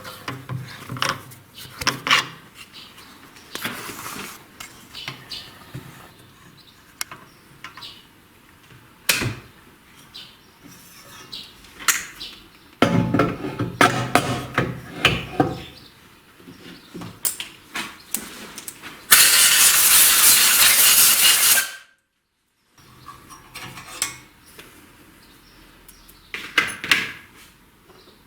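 Metal tools clinking and knocking against a cylinder head while a valve seat is cut, with a denser stretch of rough, scraping noise in the middle. Near the end comes a loud steady hiss lasting about three seconds, which cuts off suddenly.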